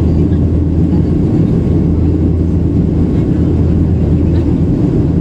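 Steady low cabin rumble of a Boeing 737-800 in the climb after take-off: its CFM56-7B turbofan engines and the rush of air over the fuselage, heard from inside the cabin by a window over the wing.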